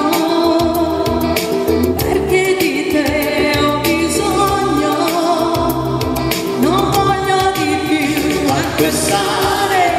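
A woman and a man singing an Italian pop love song as a duet into microphones over a backing track with a steady beat.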